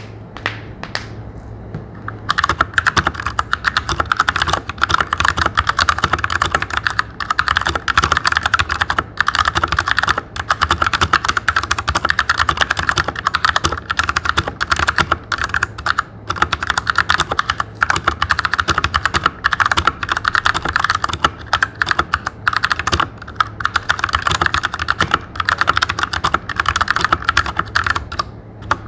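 Royal Kludge RK100 mechanical keyboard with tactile RK Brown switches being typed on fast and continuously, a dense clatter of keystrokes that starts about two seconds in.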